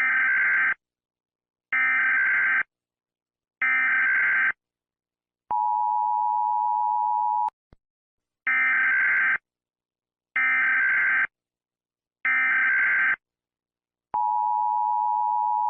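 Emergency Alert System alert signal: three harsh digital data bursts of the SAME header, each about a second long with a second's gap, then the steady two-tone EAS attention signal held for about two seconds. The three bursts and the attention tone then repeat, the tone starting again near the end.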